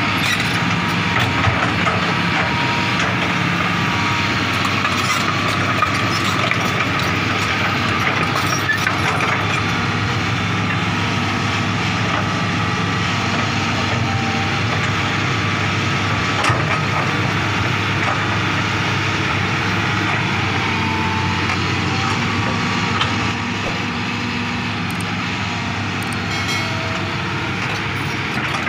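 Hitachi hydraulic crawler excavator's diesel engine running steadily as it digs soil, with a few faint knocks from the bucket and boom.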